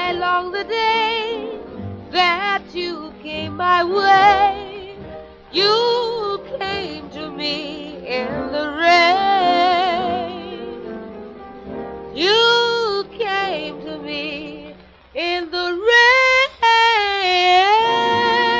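A woman singing a slow rhythm-and-blues ballad with wide vibrato and sliding, drawn-out phrases over an orchestral accompaniment, on a late-1940s record. She holds a long note near the end.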